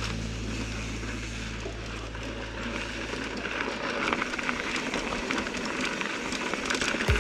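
Mountain bike riding noise on a dirt trail: tyre rumble, wind and small rattles and clicks from the bike. A held low note from the background music fades out about halfway through, and beats come back at the very end.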